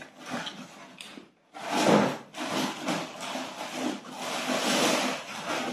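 Grocery packaging rustling and rubbing as items are handled, in uneven stretches with a brief pause about a second and a half in.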